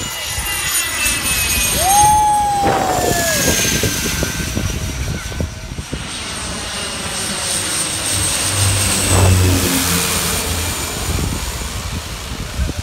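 Jet airliner's engines running loud as the aircraft passes, with a rumble and a high engine whine that slides down in pitch.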